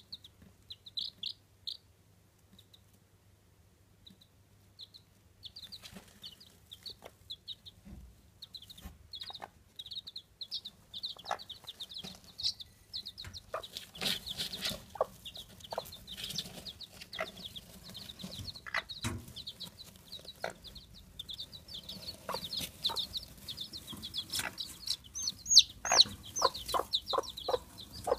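Chabo (Japanese bantam) chicks peeping, short high peeps that are sparse at first and then come almost without pause, busiest near the end. The mother hen clucks now and then under them.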